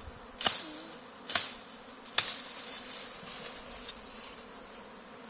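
Honeybee swarm buzzing steadily while being taken from a bush, with three short sharp noises in the first couple of seconds.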